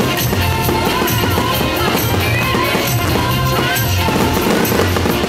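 Music with a steady drum beat, playing continuously.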